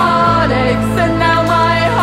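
Soundtrack music: an indie rock song with held low bass notes under a wavering melody line.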